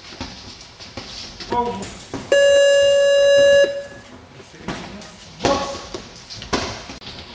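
A ring timer's buzzer sounds once, a steady tone lasting about a second and a half, the signal to start the round. Voices shout briefly before and after it.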